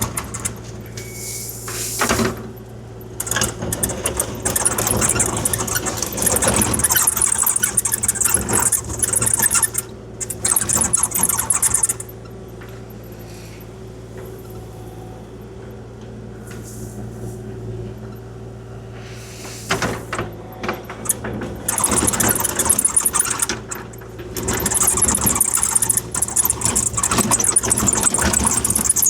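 Kubota KX040-4 mini excavator's diesel engine running steadily under work, with long stretches of gravel scraping and rattling as the bucket grades the driveway. The scraping drops away for several seconds in the middle, leaving only the engine, then returns near the end.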